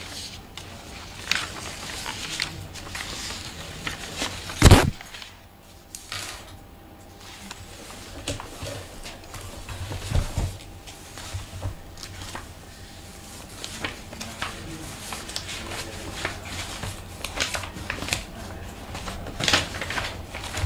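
Scattered knocks, clicks and clatter in room noise, with one loud sharp knock about five seconds in and a duller thump about ten seconds in.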